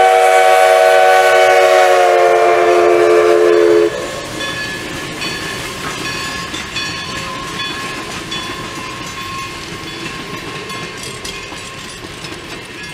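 Steam locomotive whistle sounding a long chord of several notes, its pitch sagging slightly as the engine passes, then cutting off sharply about four seconds in. Passenger coaches then roll past with wheels clicking over the rail joints, fading away.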